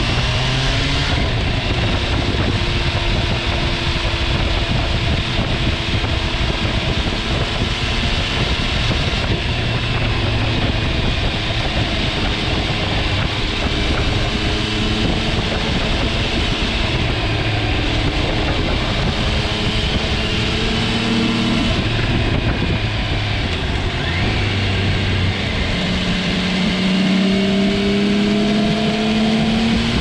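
MV Agusta Turismo Veloce Lusso's three-cylinder engine under hard riding, its note climbing, dropping back and climbing again as it pulls through the revs, with a long rise near the end. Heavy wind and road noise run under it.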